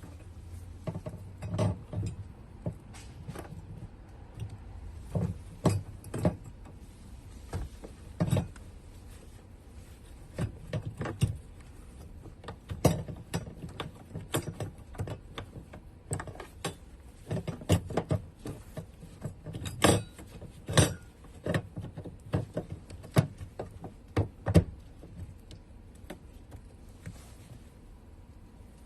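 Irregular clicks and knocks of a fuel pump module being pushed down into the tank and its locking ring fitted and turned into place, thinning out near the end.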